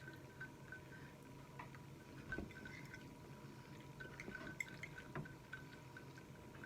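Faint, wet chewing and mouth sounds of a person eating spaghetti and meatballs in sauce, a scatter of small clicks with a few louder smacks.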